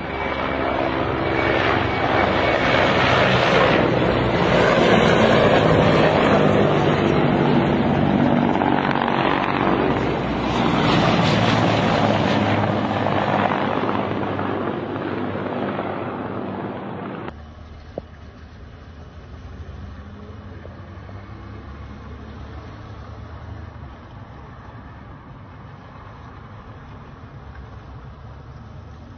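Helicopters flying low overhead: a loud roar of rotors and engines that swells twice and then fades. It cuts off suddenly about two-thirds of the way through and gives way to a much quieter steady rumble.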